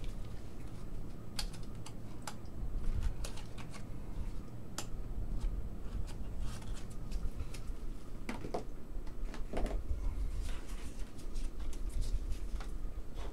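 Trading cards and plastic card holders being handled on a desk: irregular light clicks and taps over a steady low hum.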